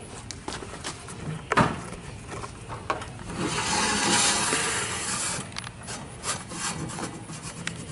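A portable basketball goal's pole and backboard being handled and adjusted: a sharp knock about a second and a half in, then a scraping rub for about two seconds, with scattered clicks and knocks.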